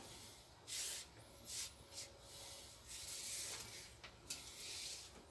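Paracord rubbing and swishing as it is pulled loose through the hands, in several short faint strokes.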